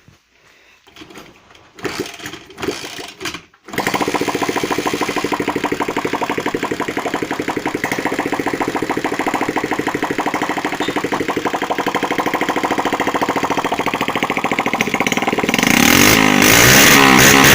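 A freshly repaired moped's small single-cylinder four-stroke engine. After a couple of seconds of scattered handling noises it catches about four seconds in and runs steadily. It then revs up louder near the end.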